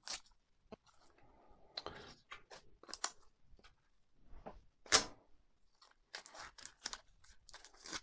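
Sellotape being pulled and torn and pressed down over coins on a cardboard wing tip: a string of short rips and crackles, the loudest about five seconds in.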